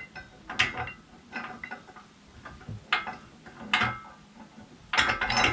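Steel mounting plate clinking and scraping against the caravan's metal chassis as it is shifted to line up the bolt holes: a handful of short metallic clanks, with the loudest cluster near the end.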